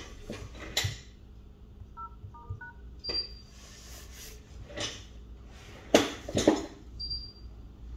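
A smartphone's dial pad giving touch-tone key beeps: three quick two-note presses about two seconds in, with a short high beep twice. Taps and clicks of the phone being handled run through it, and the loudest are two knocks around six seconds in.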